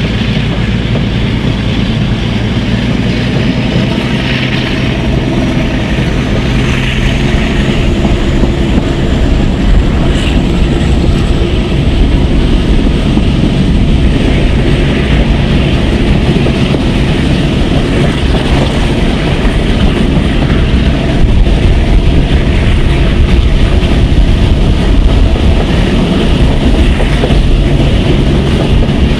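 Twin Maybach MD650 diesel engines of a Class 42 Warship diesel-hydraulic locomotive working under power, a steady deep drone with a high whine that rises in pitch over the first ten seconds or so and then holds. Heard from an open coach window with wind and the rumble of the carriages on the track.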